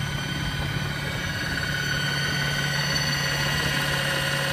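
Torqeedo 1003S electric outboard motor running steadily at top speed: a steady low hum with several thin, even high whining tones above it, over the rush of water beneath the inflatable boat.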